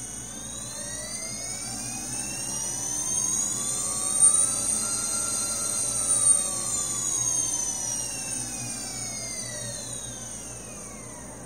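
AOKFly FR2205 2300kv brushless motors on a quadcopter frame spinning without props in a BLHeliSuite motor test. They give a smooth electric whine that rises in pitch to a peak about five to six seconds in, then falls away, with a steady high tone over it.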